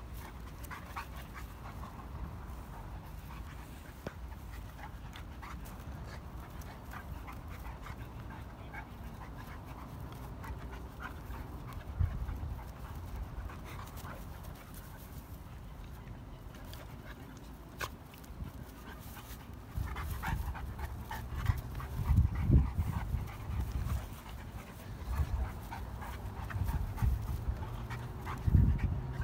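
A Dogo Argentino and a beagle play-fighting on grass: the sounds of two dogs wrestling, with louder, irregular dull bumps and scuffles in the last third.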